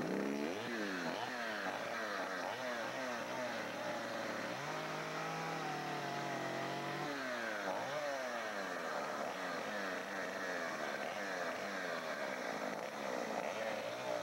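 A two-stroke chainsaw revving up and down over and over in quick swoops. Near the middle it holds a steady, lower pitch for about two seconds.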